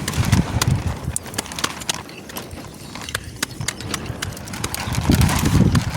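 A run of irregular sharp clicks and knocks, with heavier low thuds at the start and again near the end.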